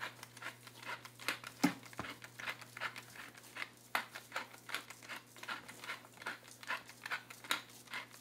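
Wooden pepper mill being twisted by hand, grinding peppercorns in a run of short crunchy rasps, about two a second.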